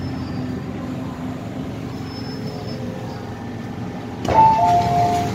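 MTR M-Train running with a steady rumble as it slows into a station. About four seconds in comes a sudden clunk as the doors release, followed by a door chime of two tones alternating high and low.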